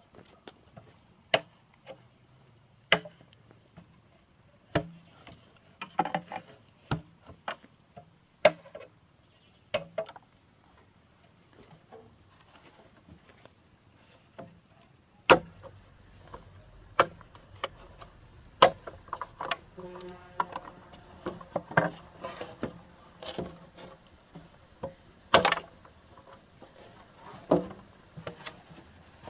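Hand tools striking wood: sharp knocks at irregular intervals, about one every second or two, with lighter taps in between that grow busier in the second half.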